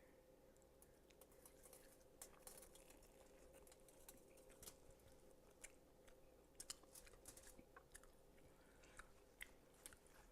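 Faint close-up chewing of a barbecue pulled-pork sandwich: scattered soft wet mouth clicks and small crunches, over a faint steady hum.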